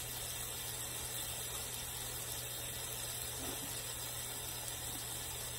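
T-bone steak sizzling steadily as it cooks, with a low steady hum underneath.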